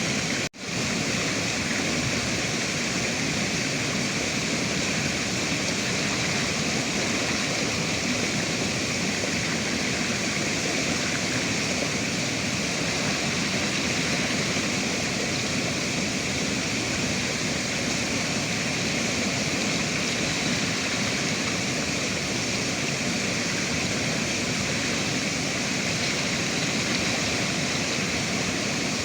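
River water rushing steadily, an even unbroken roar of flowing water. The sound cuts out for an instant about half a second in and comes straight back.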